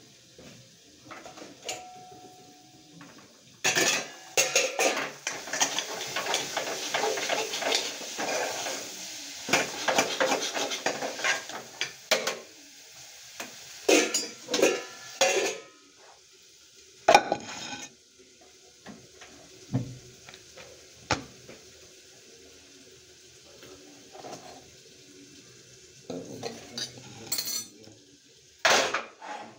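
A metal spoon scraping and clinking against a steel cooking pot, with a long run of stirring and then separate clatters of utensils and cookware being handled. Near the end a pan knocks against the gas stove.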